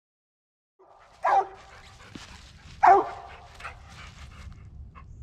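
Original Mountain Cur squirrel dog barking at the base of a tree, the sign of a treed squirrel. Two loud barks about a second and a half apart, starting about a second in, then a fainter one.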